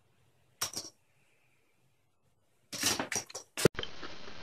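Sharp knocks and clatters: a brief cluster about half a second in, then a louder run of several knocks about three seconds in. After that comes a steady hiss of background noise.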